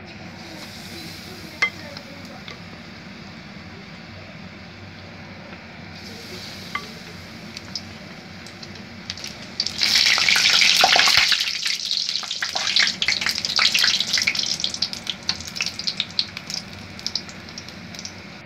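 Battered chickpea-flour vegetable fritters deep-frying in hot oil in a wok: a low steady sizzle with a sharp tap about two seconds in, then a loud burst of sizzling about ten seconds in that turns into rapid crackling pops and dies back down near the end.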